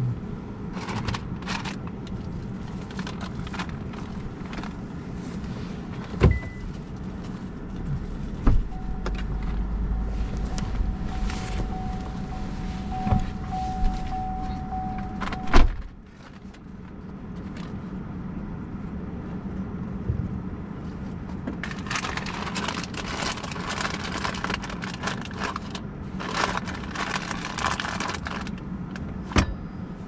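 Cabin sounds inside a parked car: a steady hum with scattered clicks and handling knocks. For about seven seconds in the middle a low rumble with a steady tone runs and ends in a sharp click, and near the end come stretches of rushing noise.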